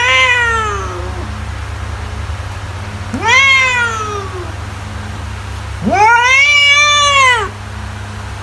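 Domestic cat meowing three times. The drawn-out meows each swoop up and then fall in pitch, and the third, about six seconds in, is the longest. A steady low hum runs underneath.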